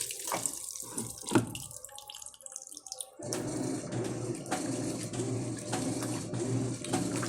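Water running in the Electrolux LF10 top-load washing machine as it fills, broken by short pauses and clicks. About three seconds in, a steady machine hum with a regular pulse starts and carries on.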